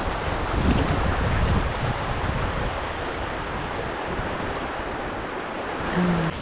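Steady rush of flowing stream water. A short vocal sound comes near the end.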